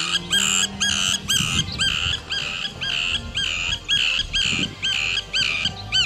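River tern calling over and over, a steady run of short repeated calls at about two to three a second.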